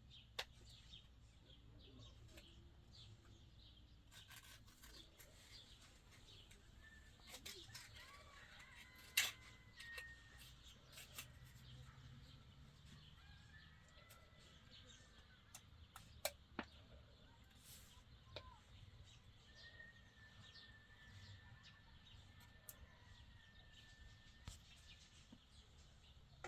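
Near silence: faint outdoor ambience with scattered soft clicks and taps, the sharpest about nine seconds in, and a few faint thin chirps or whistles.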